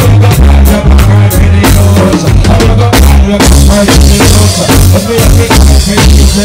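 Live reggae band playing loud through a PA, with a drum kit keeping a steady beat over a heavy bass line.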